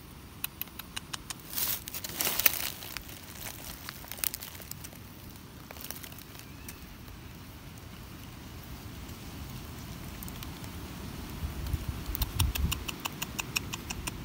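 Close handling noise and crackling rustles of dry stems by the eel hole. Scattered sharp clicks, a louder burst of crackles about two seconds in, and another run of clicks with low thumps near the end.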